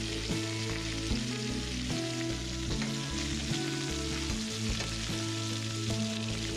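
Floured rabbit pieces sizzling steadily as they brown in hot olive oil in a stainless steel skillet, turned over with a fork partway through. A background tune plays under the sizzle.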